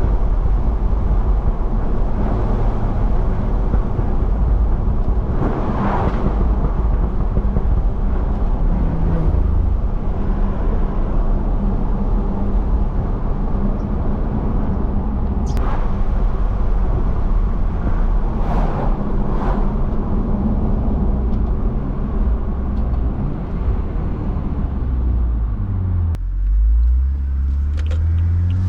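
BMW F30 335i's turbocharged inline-six with a catless downpipe and Stage 2 tune, running steadily under way over continuous road and tyre noise. Near the end the road noise drops away and the engine pitch rises and falls.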